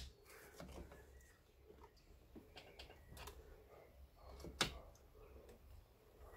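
Near silence with faint scattered clicks and one sharper click about four and a half seconds in, from a pry bar being worked carefully at the top radiator hose to ease it off its spigot.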